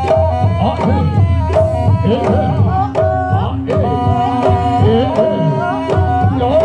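Jaranan Buto accompaniment music: a steady pattern of hand-drum strokes under a bending, ornamented melody line.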